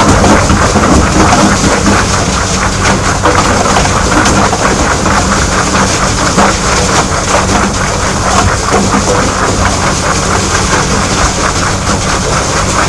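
CRIFI wobbler screen feeder running under load: rock clattering and knocking as the rotating manganese-steel shafts tumble it forward, over a steady low hum of the machine's drive.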